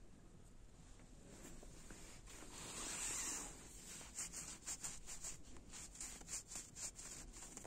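Fabric of a camouflage half-fleece jacket rustling as its sleeve is handled: a longer swish about three seconds in, then a run of short crinkles several times a second.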